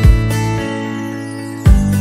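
Background music with a steady beat, which drops out for about a second and then comes back in.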